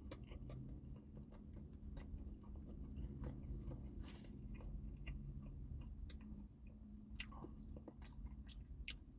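A person chewing a mouthful of a spicy breaded chicken sandwich, with scattered small crunches and wet mouth clicks over a low steady hum.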